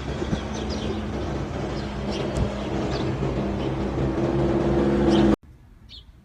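A motor vehicle engine running steadily and growing louder, with small birds chirping over it. The sound cuts off abruptly about five seconds in, leaving a quiet background with a single faint chirp.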